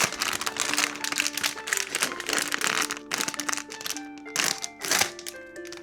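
Packaging crinkling and rustling in quick, irregular crackles as a plush toy is unwrapped and handled, over light background music with a simple stepping melody.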